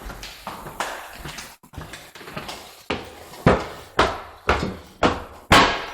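Footsteps on a hard floor at walking pace, about two steps a second, soft at first and getting louder about halfway through.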